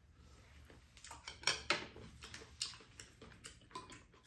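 Chopsticks and a spoon clicking and tapping against ceramic bowls and plastic side-dish trays during a meal: a string of irregular light clicks, the sharpest about a second and a half in.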